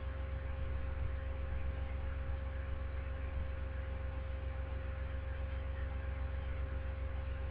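Steady low electrical hum with a faint steady higher tone over it, unchanging throughout; no wind or rain is heard.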